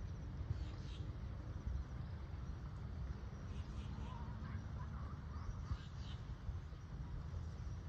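Birds chirping now and then, short high calls with a brief warble about halfway through, over a steady low rumble of outdoor background noise.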